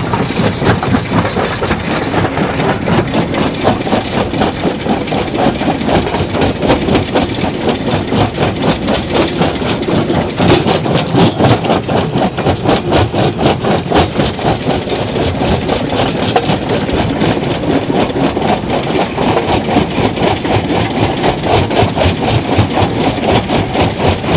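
Stone crusher machine running, a loud continuous mechanical clatter with a fast, even beat of about four knocks a second.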